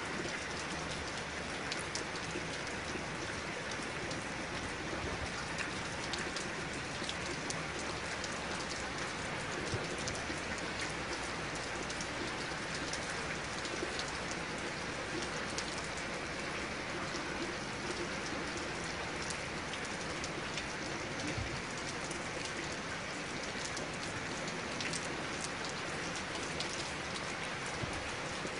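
Steady rain: an even hiss with many single drops ticking sharply through it.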